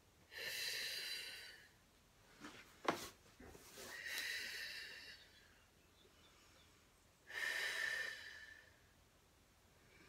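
A yoga practitioner's deep, audible breaths, three long breaths about three seconds apart, each lasting about a second and a half, while she moves through the poses. A short sharp knock a little before the middle is the loudest sound.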